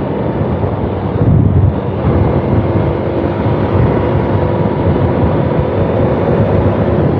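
Honda CBF190X single-cylinder motorcycle engine running at a steady cruising speed, mixed with heavy wind rush on the microphone.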